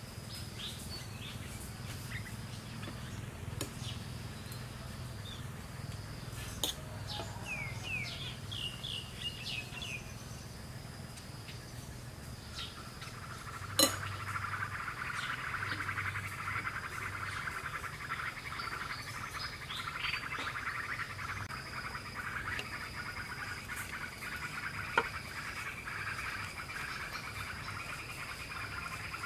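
Garden ambience of birds chirping and insects calling. A high insect call repeats about once a second, and a short run of bird chirps comes a third of the way in. From about halfway a dense, buzzing insect trill sets in and continues. Two sharp clicks stand out, the louder about halfway.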